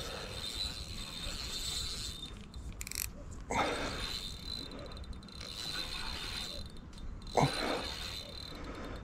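Daiwa N'Zon feeder spinning reel being cranked under load from a hooked fish, its gears whirring. It runs in three spells with two short pauses, picking up sharply after each.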